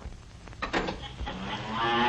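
A cow mooing, one long moo that starts in the second half, used as a radio-drama sound effect. A single knock comes shortly before it.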